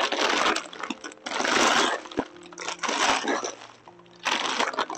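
Water sloshing and splashing in about four short bursts with brief pauses between them.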